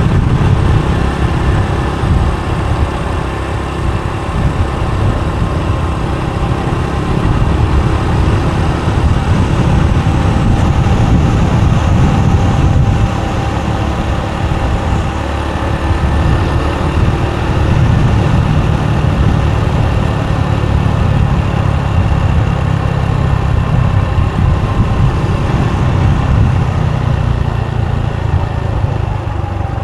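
Motorbike riding along an open road: the engine runs steadily under a dense low rumble of wind and road noise.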